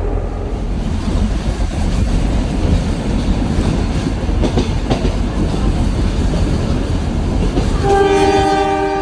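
Train running along the track with a steady rumble, and its horn sounding near the end as one sustained multi-tone blast.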